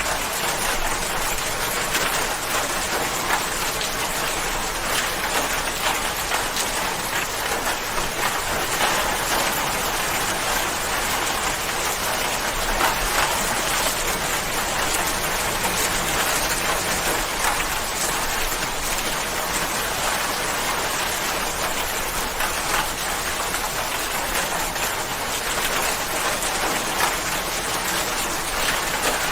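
Steady rain falling, a dense even patter of drops on a surface with no let-up.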